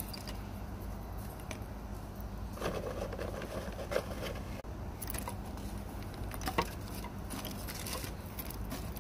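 Small pieces of wooden kindling being pushed by hand through the firehole of a model steam locomotive's firebox, giving scattered clicks, knocks and scrapes of wood on metal over a steady low background rumble.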